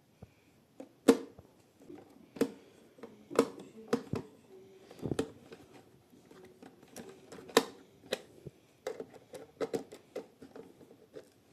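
A screwdriver working a screw out of a plastic toy washing machine: irregular sharp clicks and knocks of metal on plastic, several of them loud.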